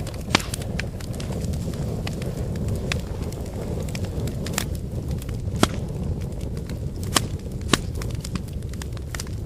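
Wood fire burning: a steady low rumble of flames with sharp irregular crackles and pops from the burning wood, the loudest pop about five and a half seconds in.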